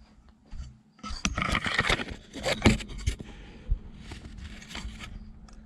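Camera handling noise as the camera is picked up and repositioned on a cluttered workbench: a stretch of scraping and knocking, then a faint steady hum.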